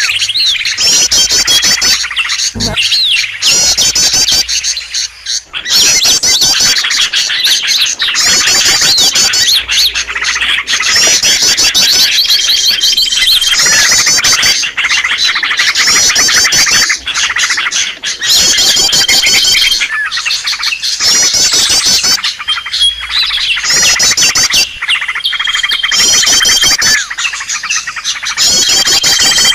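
Bird-lure recording of small songbirds: rapid high chattering trills repeating every second or two, with a short held whistle note recurring every few seconds.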